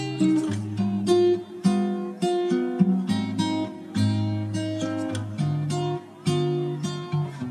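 Background music: acoustic guitar strumming and picking chords in a steady rhythm, with the bass notes changing every second or so.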